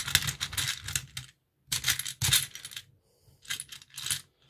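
Loose plastic Lego pieces clattering and clicking as a toy grab claw digs into a tipper bed full of them, in three short bursts with brief pauses between.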